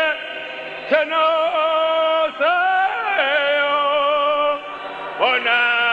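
A single voice singing slow, drawn-out notes, each held for a second or two with a slight waver and sliding into the next.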